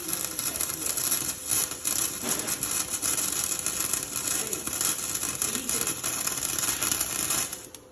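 Flux-core wire-feed welder arc crackling and sizzling steadily while laying a bead, stopping abruptly near the end.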